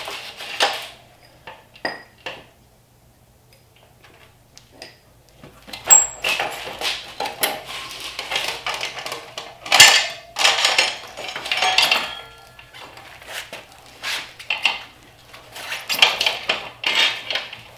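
Metal tools and parts clinking and clanking in irregular bursts, with a few short ringing pings, as a dirt bike's rear wheel is being taken off. There is a quiet pause of a few seconds near the start.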